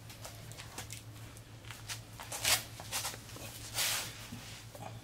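Hand tools and parts being handled on a concrete garage floor: a few short clatters and scrapes, the loudest about halfway through, over a steady low hum.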